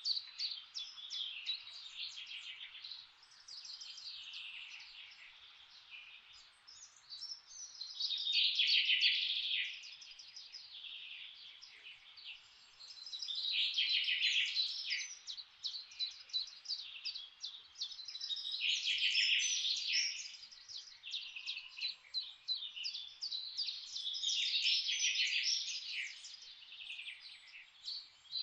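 Songbirds singing, a dense stream of rapid high chirps and trills with a loud song phrase about every five to six seconds, over a steady background hiss.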